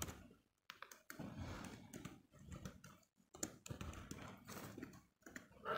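Faint typing on a computer keyboard: short runs of key clicks with brief pauses between them.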